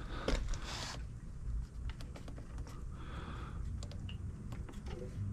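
Button presses on the control keypad of a Pentair variable-speed pool pump: a scattering of separate small clicks as the pump is set to a low speed.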